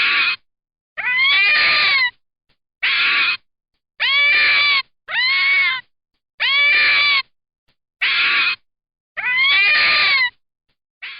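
An animal calling eight times, each a loud pitched cry of about half a second to a second that rises at the start and then holds or falls slightly, with short silent gaps between the calls.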